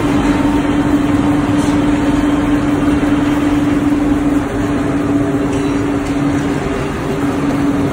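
Steel bar rolling mill running: steady heavy machinery noise from the roll stands and roller conveyors as hot steel bars pass through. A strong steady hum runs under it, breaks briefly and drops away about six and a half seconds in.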